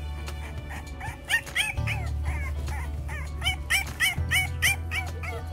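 French bulldog puppy yelping and whimpering in a quick series of short high cries, each rising then falling, starting about a second in: its reaction to a vaccine injection. Background music plays underneath.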